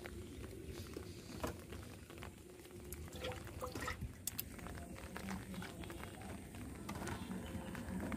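Light scattered clicks and crinkles of plastic drink bottles being handled and set into a plastic basket, over a faint outdoor background.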